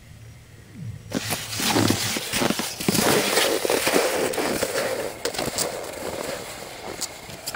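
Skis, boots and poles crunching and scraping through snow close to the microphone: a dense crackling that starts suddenly about a second in and eases off toward the end.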